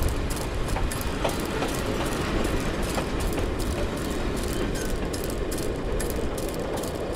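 Train running along the rails: a steady rumble with faint clicks of the wheels on the track, growing slightly quieter toward the end.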